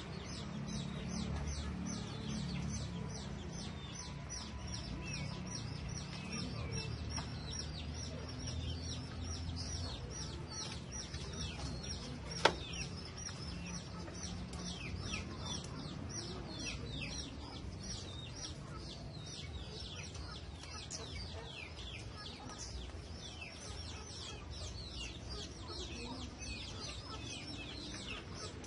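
Birds chirping and clucking, with many short falling chirps in quick succession over a low steady hum. One sharp click about halfway through.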